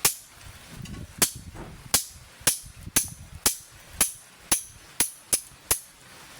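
A hammer striking metal, about eleven sharp ringing blows, mostly about two a second.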